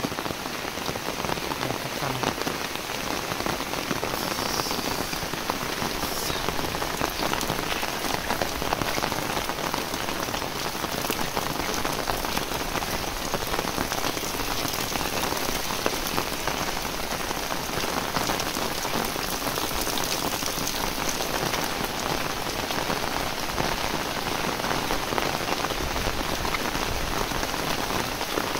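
Heavy rain falling steadily: a dense, even hiss of drops on roofs, leaves and the wet ground.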